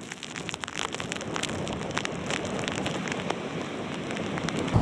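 Hurricane-driven storm surf washing over a beach and rock jetty: a steady rushing hiss of breaking waves and foam, full of fine crackles.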